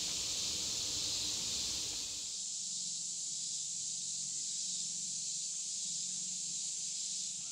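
Chorus of summer insects in the woods, a steady high-pitched drone, with faint low rustling during the first two seconds.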